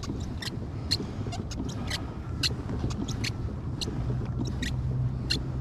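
Small birds chirping, quick short high notes several a second at irregular spacing, over a steady low rumble.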